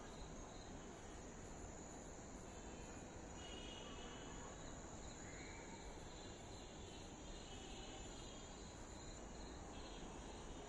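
Faint night insects, likely crickets: a steady high trill throughout, with a higher, evenly pulsed chirping that drops out and returns partway through.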